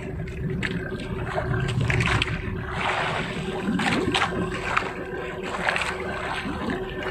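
A small outrigger fishing boat's engine running with a steady hum, under wind and water noise, with a few short sharp knocks scattered through.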